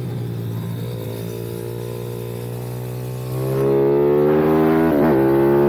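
155 cc pit bike's single-cylinder four-stroke engine heard from the rider's seat. It runs on light throttle, then gets louder about three seconds in as the revs climb steadily. Near the end the revs dip briefly and pick up again.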